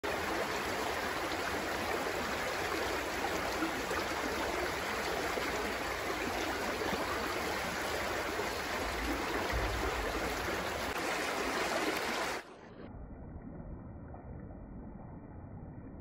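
Shallow woodland stream rushing steadily over stones. About three-quarters of the way through, the sound abruptly turns quieter and muffled.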